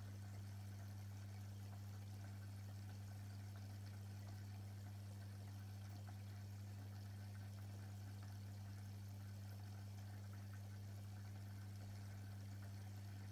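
Aquarium pump or filter humming steadily on mains power, with a faint trickle of water running in the tank.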